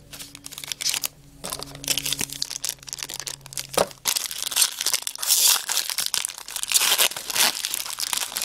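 Trading card pack wrapper crinkling and tearing as it is pulled open, a rapid irregular run of rustles and crackles that grows busier about halfway through.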